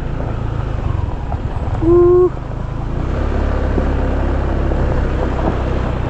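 Motor scooter engine running steadily while riding, heard as a continuous low rumble. About two seconds in comes one short, steady, pitched beep.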